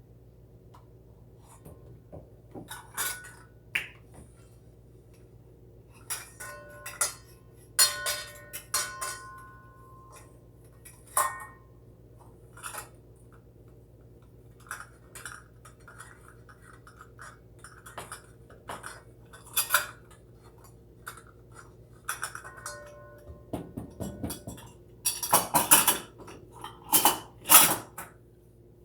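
Kitchen utensils and dishes clinking and knocking against each other while ingredients are mixed. The clinks are scattered and some ring briefly, with a busier bout of clatter near the end, over a faint steady hum.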